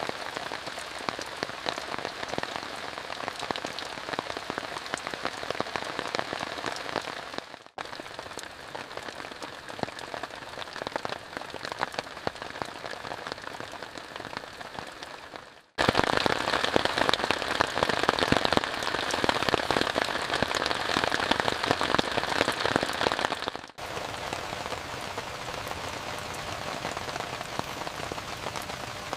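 Rain falling on a tent, a dense crackle of many small drop impacts. It runs as four stretches joined by abrupt cuts; the third, from about halfway to three quarters of the way through, is clearly louder.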